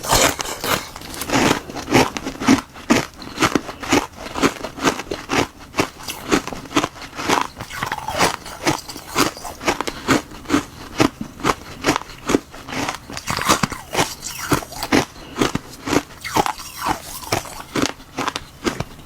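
Close-miked biting and chewing of ice frozen in a glove mould with black goji berries: sharp, brittle crunches, about two a second.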